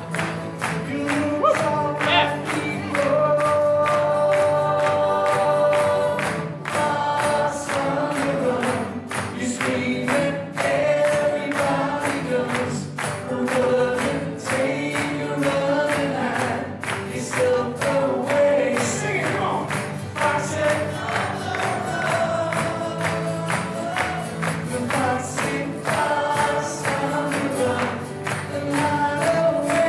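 A pop song with several male voices singing in harmony over strummed acoustic guitars and a steady beat.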